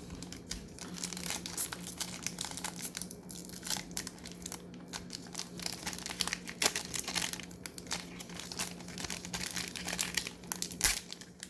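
Plastic foil trading-card pack being torn open and its wrapper crinkled, a dense run of irregular crackles, over a faint steady hum.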